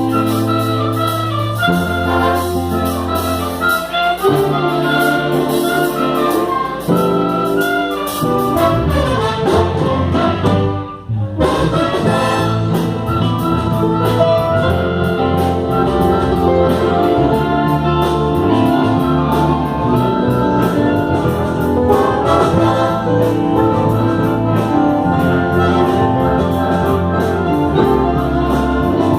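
A band playing music led by brass instruments such as trumpets and trombones, with held notes. The music breaks off briefly about eleven seconds in, then resumes with a busier, percussive rhythm.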